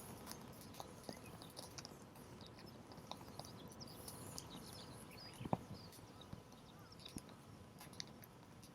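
Wood campfire crackling: scattered sharp pops and snaps over a soft hiss, with one louder pop about halfway through.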